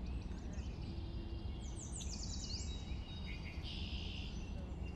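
Small birds chirping and twittering, with a run of quick falling notes about two seconds in and a short buzzy call a couple of seconds later, over a steady low outdoor rumble.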